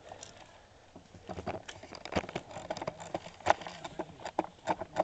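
Airsoft gun firing a string of sharp single shots at an irregular pace, several a second, starting about a second and a half in.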